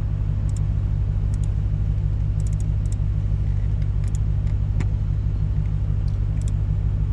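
Lexus RC F's 5.0-litre V8 idling, a steady low rumble with an even pulse, heard from inside the cabin. A few faint scattered clicks from typing on the touchscreen.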